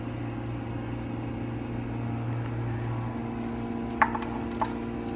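A steady low hum, with a few light, sharp clicks about four seconds in as the new VANOS solenoid is worked into its bore in the cylinder head.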